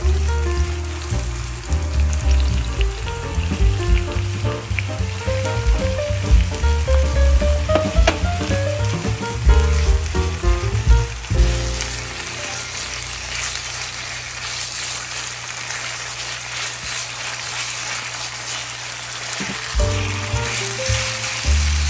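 Diced onion, bell pepper and raw chicken sizzling in hot oil in a frying pan as they are stirred with a silicone spatula. Background music plays over it, dropping away for several seconds in the middle, where the sizzle is plainest.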